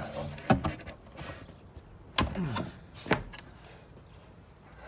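A few separate sharp knocks on the pine boards of a post wrap, with a short creak just after the second, the boards being handled and bumped.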